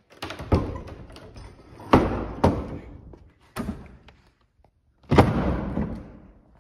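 A series of heavy thuds and bangs, about five in all, the loudest about two seconds in and about five seconds in, each dying away in a long echo.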